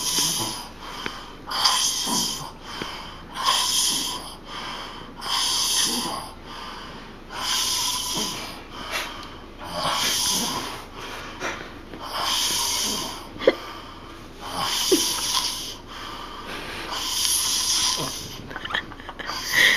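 A man passed out drunk, snoring in long, regular snores about every two seconds.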